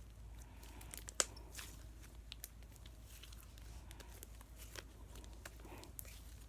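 Slime being squished by hand, making faint irregular sticky clicks and crackles, with one sharper pop about a second in.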